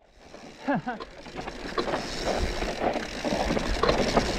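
Mountain bike descending a rough, technical trail: tyre noise over rocks and roots with the bike clattering and rattling, building up from about a second in.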